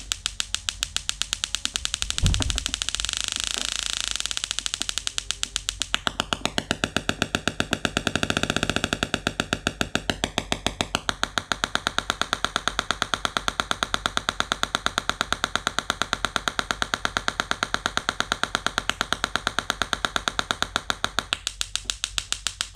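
Small solid-state Engine DIY musical Tesla coil in arc mode, sparks snapping off its discharge needle as a rapid, evenly pulsed buzzing crackle. The pulse pattern shifts during the first ten seconds or so, then settles into a steady rhythm.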